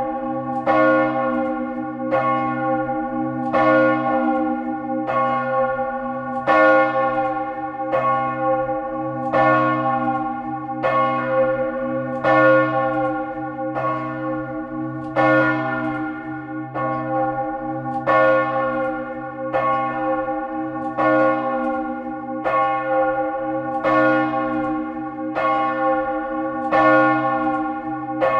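Great church bell, the Grand'Cloche, swinging high in full peal, its clapper striking in a steady rhythm about every one and a half seconds. Each stroke rings on over a continuous low hum, heard close up in the belfry.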